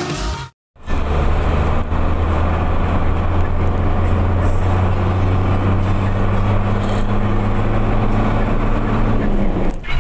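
Truck engine running steadily at cruising speed with road noise, heard from inside the moving vehicle: a constant low hum with a fainter steady tone above it. It starts after a brief dropout to silence less than a second in.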